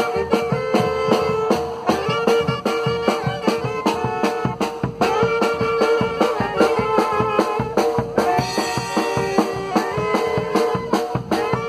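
Oaxacan calenda band playing: a snare drum and a bass drum with a mounted cymbal beat a steady quick rhythm under clarinets and saxophone carrying the melody.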